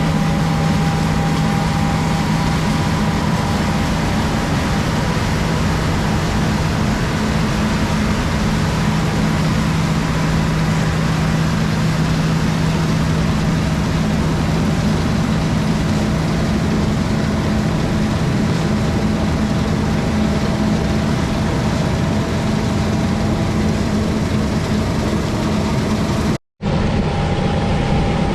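Heavy diesel harvest machinery running steadily: a constant low engine drone with a steady hum over broad machine noise. It cuts out to silence for a split second near the end.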